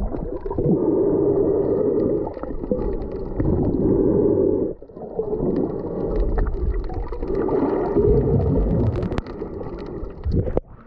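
Muffled underwater sound picked up by a submerged action camera: dull rushing water and bubbling as swimmers dive down past it, dipping briefly about halfway through.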